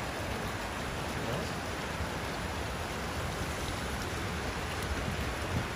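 Steady splashing hiss of hot-spring water trickling and falling over the rocks at the pool's edge.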